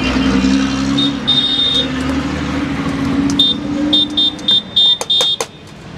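A metal spoon clinking against a stainless-steel bowl six or seven times in the second half while tossing chopped vegetables, each strike ringing briefly in a high tone. Before that, a steady engine hum from street traffic.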